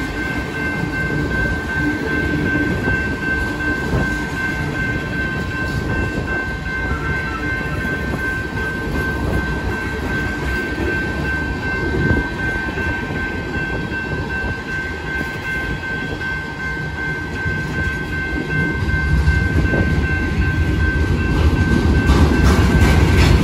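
Union Pacific freight train cars (tank cars and covered hoppers) rolling past close by: a steady rumble and clatter of wheels on rail, with a steady high ringing tone over it. The rumble grows louder in the last few seconds.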